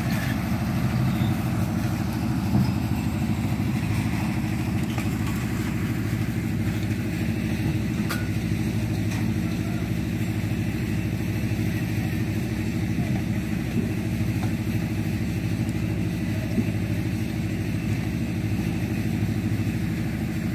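An engine running steadily at one constant speed: an even, low drone that does not change.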